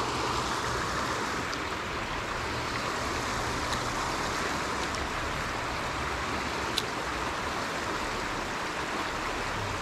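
Creek water rushing over a jam of logs and brush: a steady, even rush. One sharp click about seven seconds in.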